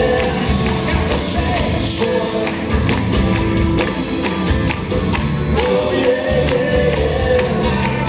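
Live rock band playing with singing: acoustic guitar and keyboard over a steady beat, the voices rising and falling in sung phrases.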